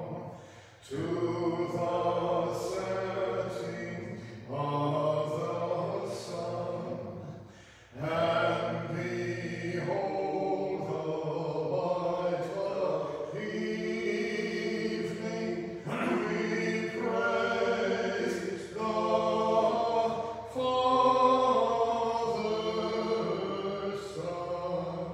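Unaccompanied Orthodox liturgical chant, voices singing in phrases of a few seconds with short breaks between them.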